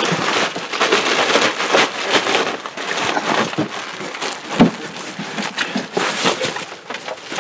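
Rustling and clatter of harvested milkfish being handled and packed: crinkling plastic bags and boxes and crates knocked about in a steady run of small knocks, with one heavy knock about four and a half seconds in.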